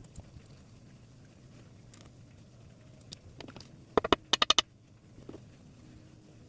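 Quiet handling of small metal lighter parts and tools, with a few light ticks, then a quick run of about six sharp clicks about four seconds in.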